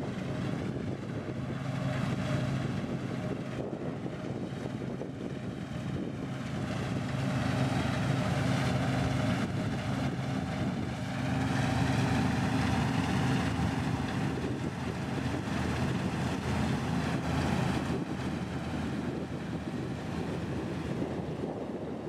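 New Holland TX32 combine harvester running while it cuts: a steady engine hum under a broad rushing noise from its working parts, loudest through the middle as it draws near. Wind buffets the microphone.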